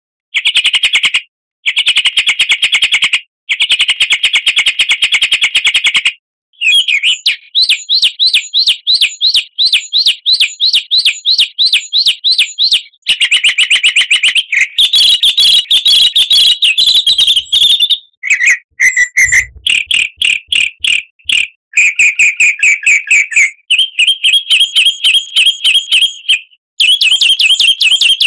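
Loud songbird song played as a training lure for caged birds: rapid strings of high chirps and trills in phrases a few seconds long. The phrases break off abruptly into short silences, and the pattern changes from one phrase to the next.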